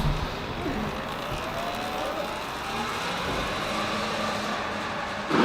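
Segway X260 electric dirt bike's motor whining, its pitch rising steadily as the bike speeds up, over a steady rushing noise.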